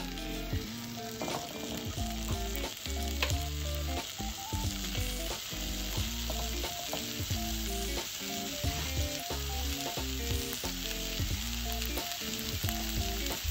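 Ostrich heart halves sizzling steadily in a hot non-stick frying pan, searing fat side down over medium heat, with background music playing underneath.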